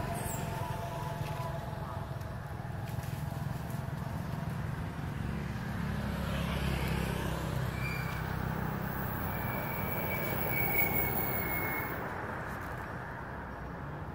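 Steady low rumble of a motor vehicle running, swelling about halfway through and again near the end, with faint thin high tones coming and going.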